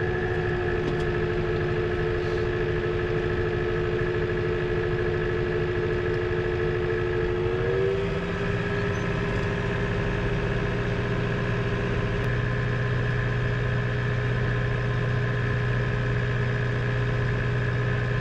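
Tractor engine and mounted grass mower running steadily, heard inside the tractor cab, with a slight step up in pitch about eight seconds in. The mower sounds okay.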